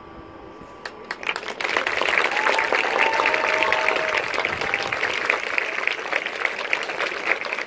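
Audience applause breaking out about a second in after a brief hush, with dense clapping and a few cheers rising above it.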